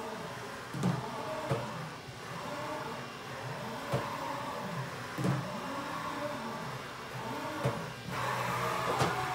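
Haas VF-4SS CNC vertical mill running, its axis servo motors whining up and down in pitch about once a second as the axes move back and forth, with several sharp clicks.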